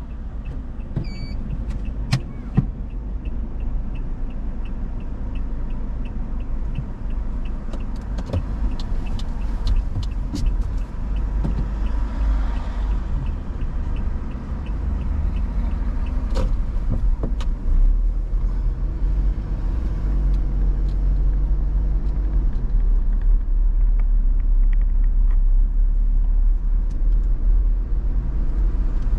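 A car being driven, with a steady low rumble of engine and road noise that grows a little louder in the second half. For the first ten seconds or so there is a regular light ticking, with a few scattered clicks and knocks.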